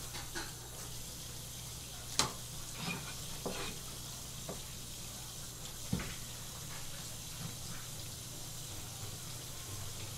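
Steady hiss of running water with a low hum behind it, and a handful of sharp knocks and taps from a knife and fish being handled on a plastic cutting board, the loudest about two seconds in.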